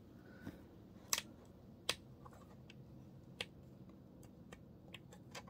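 Faint, scattered sharp clicks of a small screwdriver undoing the screws on the side of a graphics card. The loudest clicks come about a second and about two seconds in.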